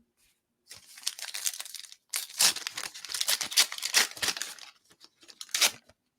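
Trading card pack wrapper being torn open and crinkled in the hands, with a dense run of crackling for about four seconds and one more short crinkle near the end.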